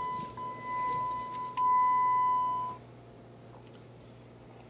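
Electronic warning chime from a Jeep Wrangler's dashboard: a steady high tone that grows louder about a second and a half in, then cuts off suddenly just under three seconds in. A few light clicks come over it.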